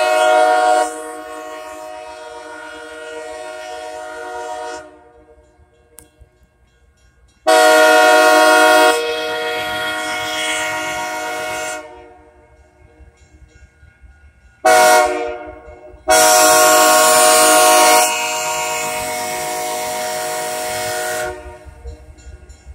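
Diesel locomotive air horn sounding the grade-crossing signal: two long blasts, a short one, then a final long one as the train approaches the road crossing. A low rumble of the approaching train comes in near the end.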